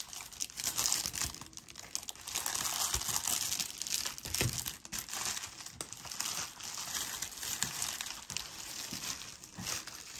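Packaging being handled: irregular crinkling and rustling, with a few short taps and knocks.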